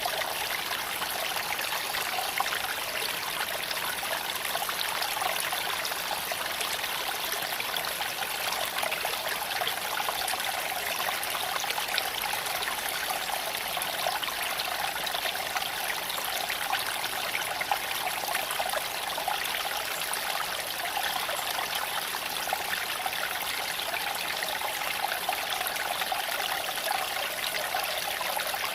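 Creek water flowing and trickling over stones, a steady, even rush with fine splashes.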